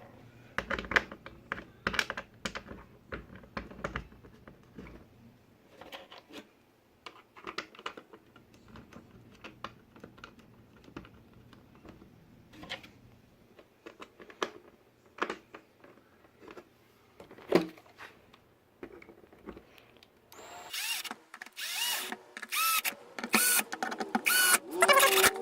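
Scattered clicks and taps of screws being set by hand into car door trim. About twenty seconds in, a power drill starts driving the screws in: louder, in short runs, its motor pitch rising and falling.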